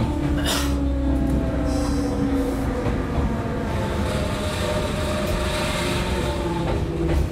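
Cabin running sound of a JR 115-series electric train car under way: a steady rumble of wheels on rail with the even hum of its traction motors, and a hiss that swells for a couple of seconds midway.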